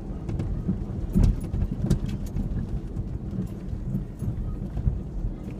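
2003 Ford Ranger 4x4 driving off-road: a steady low engine and road rumble, with scattered knocks and rattles as the truck jolts over rough ground.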